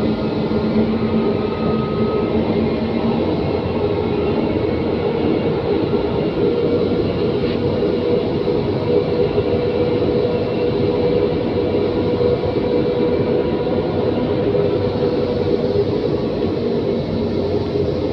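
Elevated metro train running at speed, heard from inside the car: steady rumble of wheels and running gear with a motor hum that moves higher in the middle and drops back near the end.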